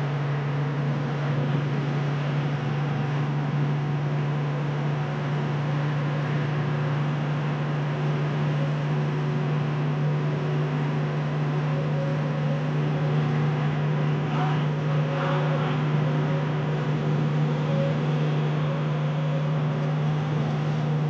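Vehicle cruising at steady highway speed, heard from inside the cab: a constant low engine hum at one unchanging pitch over a steady hiss of road and tyre noise.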